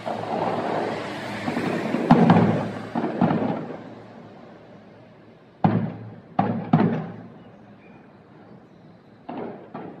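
Fireworks bursting in the air. A rumble of overlapping bangs fills the first few seconds, then come separate sharp bangs with short echoing tails: three around the middle and a few more near the end.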